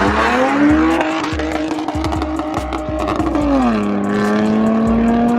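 Car engine at full throttle in a drag-race launch, revs climbing, then dropping sharply about three and a half seconds in at an upshift and climbing again.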